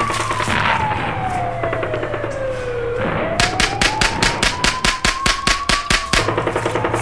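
An emergency siren wailing, its pitch falling slowly and then rising again. About three seconds in, a burst of rapid automatic gunfire joins it, roughly six shots a second, and stops about three seconds later.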